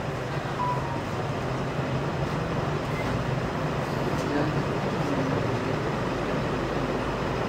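Steady background hum with an even noise haze, with no speech over it.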